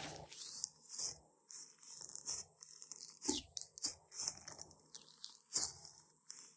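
Thick pink slime, mixed with clay and makeup, being pressed and stretched by hand: a run of irregular small crackles and pops as the sticky slime and its trapped air give way.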